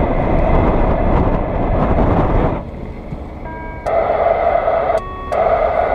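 Radio receiver audio in a car cabin: loud static hiss with a steady whine. It drops away suddenly about two and a half seconds in, then the whine comes back with short beeps at several different pitches.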